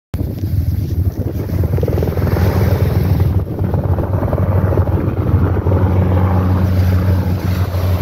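Helicopter flying past, its rotor giving a steady low throb.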